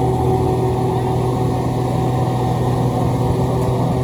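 Engine of a road construction machine running steadily at a constant speed, a low even hum with no changes.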